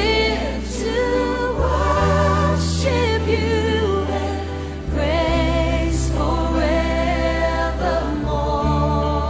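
Choir singing a hymn, with held pitches that waver, over sustained low accompaniment chords that change every few seconds.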